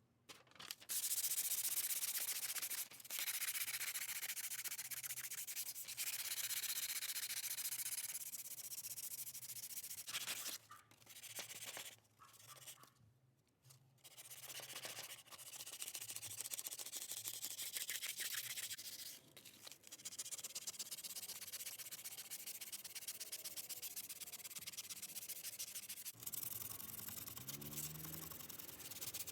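Abrasive sanding on the metal of a pickaxe, a steady scraping that runs in long stretches, broken by brief pauses a few seconds in, around the middle and a little later.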